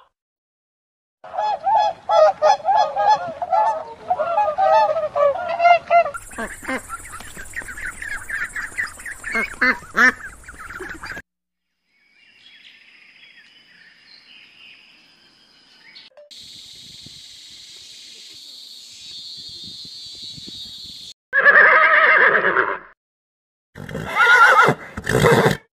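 A string of different animal calls edited one after another, each clip cutting off abruptly, with short silences between them. The first part holds repeated pitched calls, a faint stretch and a high steady hiss follow, and two loud bursts of calls come near the end.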